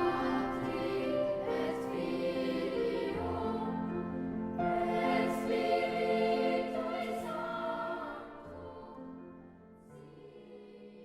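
Choral music with long held notes, fading away over the last few seconds.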